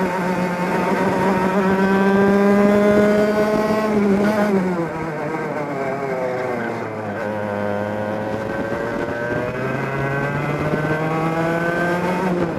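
Two-stroke kart engine heard onboard, at racing speed. Its pitch climbs steadily under acceleration for about four seconds, falls away as the throttle is lifted for a corner, then climbs again under power through the second half.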